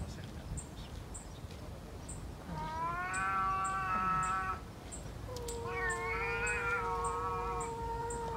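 Stray cat meowing in two long, drawn-out yowls, the first about two seconds long starting a couple of seconds in, the second starting about five seconds in and held for around three seconds.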